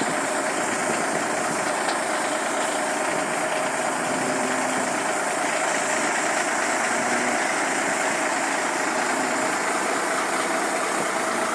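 Ford LTL semi-truck's diesel engine idling steadily.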